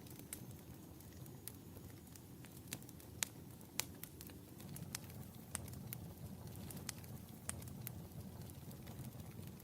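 Wood fire burning in a fireplace: irregular sharp crackles and pops over a low, steady rumble of flames, with two louder pops a little after three seconds and near four seconds in.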